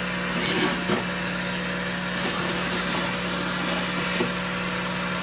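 Steady electric motor hum from running laser-cutter equipment, with a few light knocks as the rotary attachment is handled and turned in the machine bed.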